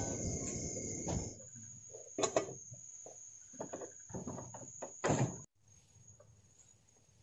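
Scattered knocks and clatter of kitchen things being handled, over a steady high trill of night insects. The sound drops away about five and a half seconds in.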